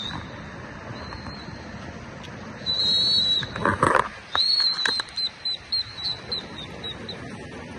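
A bird calling: a high whistled note, then a run of short high notes that come slower and fainter, with a brief rush of noise between them.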